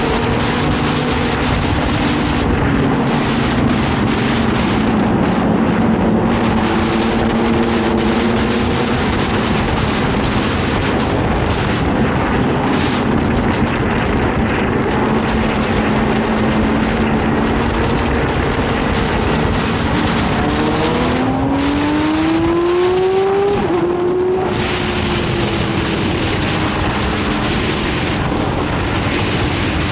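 Yamaha R6's inline-four engine running at riding speed under a heavy rush of wind noise. About two-thirds of the way through its pitch climbs steadily as the bike accelerates, then drops back with an upshift and settles.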